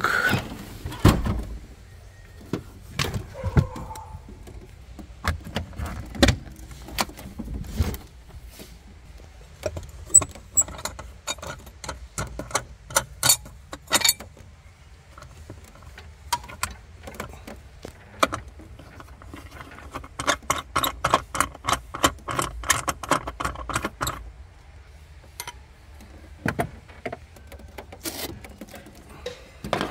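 Hands working in the cargo area of a BMW X5 E53, handling the trim panels and spare wheel: scattered clicks, knocks and rattles, with a low thump about a second in. Past the middle comes a fast run of regular clicks lasting about four seconds.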